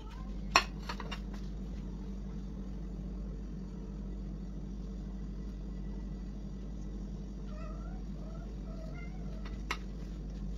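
Faint, short cat meows, a couple right at the start and a run of them in the second half, over a steady low hum. A sharp click about half a second in, the loudest sound, and another near the end.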